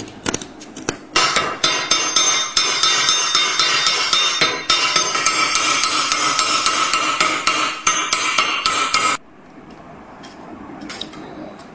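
Rivets being hammered on a thin metal vessel: rapid, repeated hammer strikes with a metallic ring, starting about a second in after a few lighter taps and stopping abruptly about nine seconds in, followed by a few scattered knocks.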